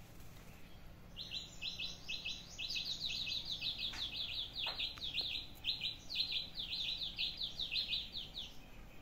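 A bird singing a long run of quick, repeated high chirps, about four or five a second, starting about a second in and stopping near the end.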